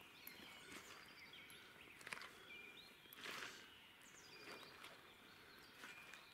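Faint forest ambience: scattered short chirps of small birds and a few soft rustles.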